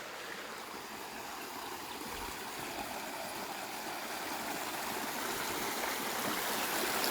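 Rainwater running and falling in a small cascade down from a reservoir, a steady rush that grows gradually louder.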